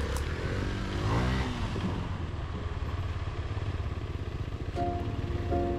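Off-road motorcycle engine running under way, its revs dipping and rising about a second in. Music with held notes comes in near the end.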